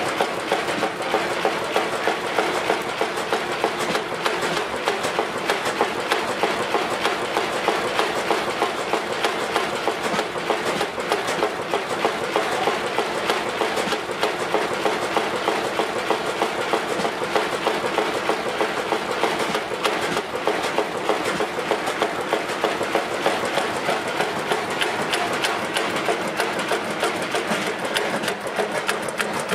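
1929 Fairbanks Morse two-cylinder stationary engine of just over 5,000 cubic inches running steadily without load, its valve gear and running parts making a dense, even clatter of fast ticks.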